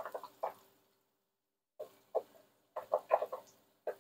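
Popcorn kernels popping in hot oil in an enamelled cast-iron pot. A few scattered pops, a near-quiet second, then the pops come quicker near the end.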